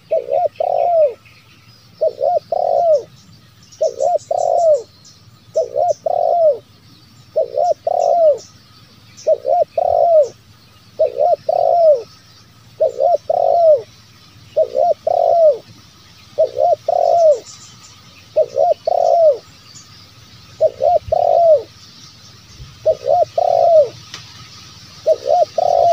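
Spotted dove cooing: a short coo phrase repeated about every two seconds, the terkukur song used as a lure call to draw wild spotted doves.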